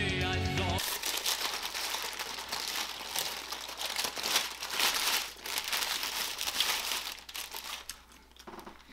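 Paper sandwich wrapper of a McDonald's McChicken crinkling and rustling as it is unwrapped by hand, in irregular crackles that die down near the end. Rock music plays for about the first second.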